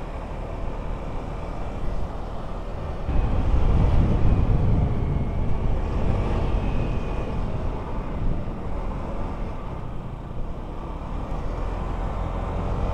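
Motorcycle engine running with road noise while riding, getting louder about three seconds in.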